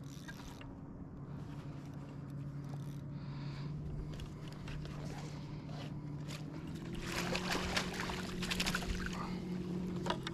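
Water splashing and sloshing as an albacore tuna is scooped into a landing net beside a kayak, loudest for a couple of seconds near the end. A steady low motor hum runs underneath and steps up slightly in pitch partway through.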